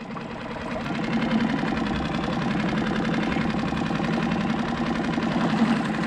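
Small gasoline outboard motor on a skiff running steadily at idle, with an even, rapid firing pulse. It gets a little louder over the first second.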